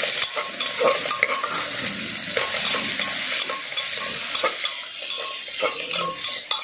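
Chopped onions sizzling in hot oil in a pressure cooker, stirred briskly with a metal spoon that scrapes the pot in quick, repeated strokes over a steady frying hiss. The onions have just gone into oil tempered with whole spices.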